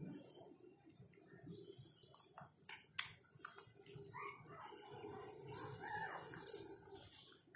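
Puppies suckling at their mother: a scatter of small wet clicks and smacks, then a few seconds of faint squeaky, warbling calls.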